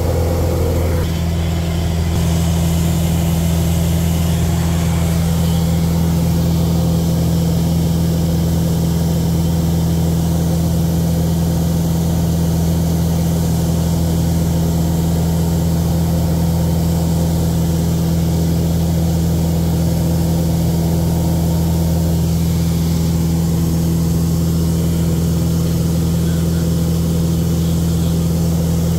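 A light aircraft's piston engine and propeller running steadily at cruise, heard from inside the cockpit with rushing airflow noise over it.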